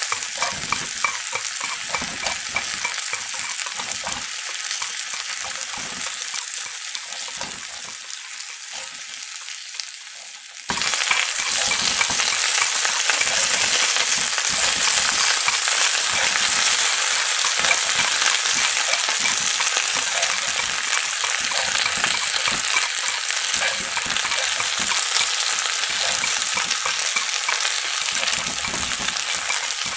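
Chicken frying in hot oil: a steady, dense sizzle with fine crackling, which becomes abruptly louder about a third of the way in.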